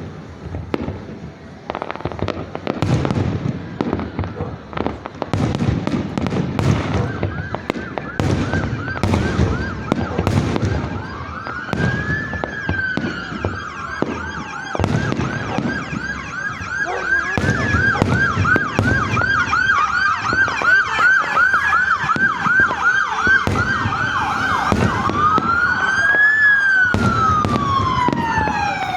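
Fireworks banging in a rapid string, with an emergency-vehicle siren starting up about a quarter of the way in. The siren wails up and down, switches to a fast yelp in the middle, then wails again, and grows louder than the fireworks by the end.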